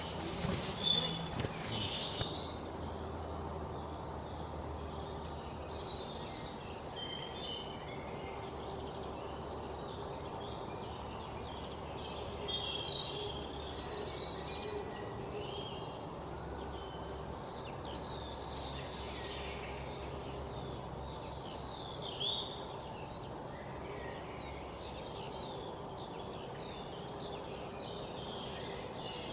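Small birds chirping and calling repeatedly over a steady outdoor background. About twelve seconds in, a louder call of rapid pulses runs for about three seconds.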